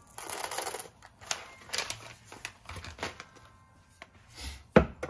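A paper coffee-bean bag crinkling, followed by scattered light clicks and taps and one sharp knock near the end.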